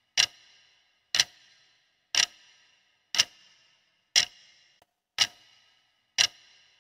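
Clock ticking once a second, seven sharp ticks each with a short ring: a countdown-timer tick sound effect marking off the seconds left to answer.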